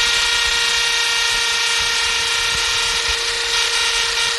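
Electric drill with a masonry bit boring into old concrete, running at a steady speed with a constant whine. Progress is slow because old concrete is very hard.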